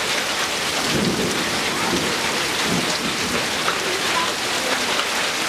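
Heavy rain pouring steadily onto trees and a grassy lawn: a dense, even hiss of a tropical downpour.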